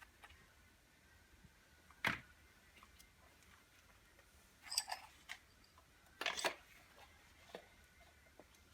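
Scattered clicks and knocks of hard parts being handled on a workbench: one sharp knock about two seconds in, then two short bursts of clattering a little after the middle.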